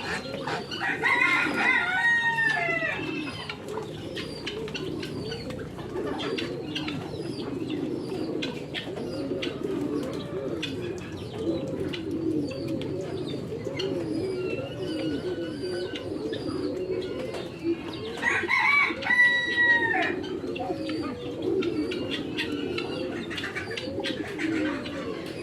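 A flock of pigeons cooing continuously, many calls overlapping. A rooster crows twice: once near the start and once about two-thirds of the way through, each crow ending in a falling tail.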